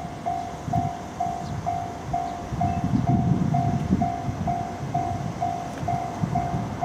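Japanese level crossing's electronic warning bell sounding, a single-pitched ding repeating evenly about twice a second, over a low rumble.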